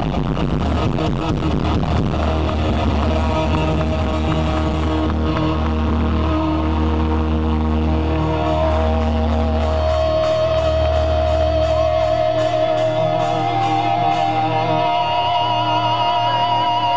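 Live heavy metal band through a stadium PA letting a chord ring out over a deep bass drone. The bass stops about twelve seconds in, leaving sustained electric guitar notes wavering in pitch with a wide vibrato.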